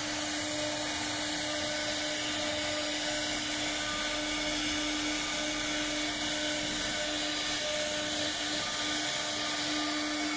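CNC wood router's spindle running steadily while carving a wooden door design: a constant whine over an even hiss.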